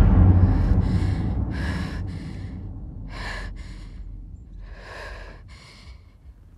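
A woman breathing heavily and audibly after crying, a string of breaths in and out every second or so. A low rumble fades away over the first few seconds.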